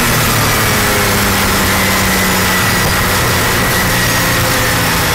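Palmer JPLM sports-prototype's engine heard from on board, holding a steady note after easing off, with heavy wind rush over the open cockpit.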